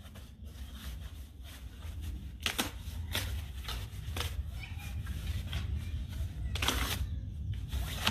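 A cardboard box being handled and torn over a small wood fire: a few short, sharp rustles in the middle and one longer rip near the end, over a steady wind rumble on the microphone.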